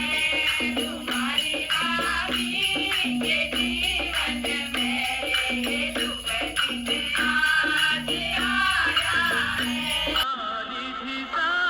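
Background music with a steady beat and shaken, jingling percussion. About ten seconds in it cuts suddenly to a different, duller-sounding song.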